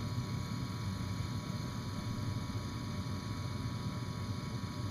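Bryant gas furnace running at the start of its ignition cycle: a steady low hum with an even airy whoosh, the draft fan running before the igniter element glows.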